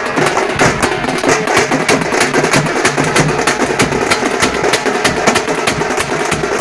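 Tamate frame drums beaten in a fast, dense, steady rhythm of sharp strokes.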